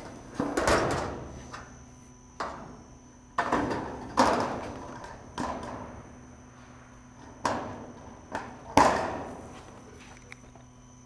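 Sheet-steel flashing being handled and cut with aviation snips while its end is worked to be turned down: a series of about seven sharp metallic clacks and clatters, each ringing off briefly, the loudest a little before the end.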